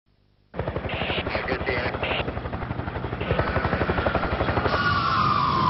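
A machine starts abruptly about half a second in with a rapid, even pulsing, like a large engine or rotor running. Near the end a siren wail joins it, falling in pitch.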